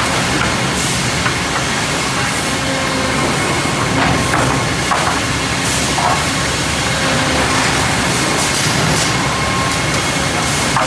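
Sawmill edger line running: a steady, loud machinery din with scattered knocks and clatters, the most of them about four to six seconds in.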